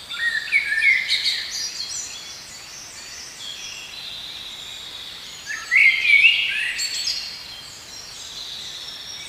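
Several birds singing and calling in quick chirping, whistled phrases, loudest in the first second or so and again about six seconds in, over a steady high-pitched hum.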